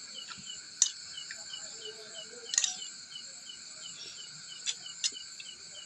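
Crickets and other insects trilling steadily, with a short chirp repeating about three times a second. A few sharp clicks cut through, the loudest about a second in and again about two and a half seconds in.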